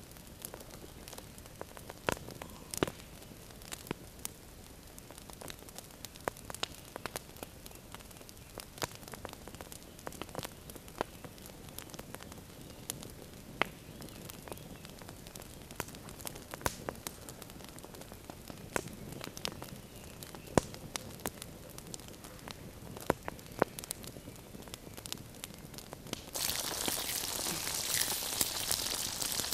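Wood campfire crackling with irregular sharp pops. About 26 seconds in it gives way abruptly to a loud, steady sizzle of bone steak frying in a pan over the fire.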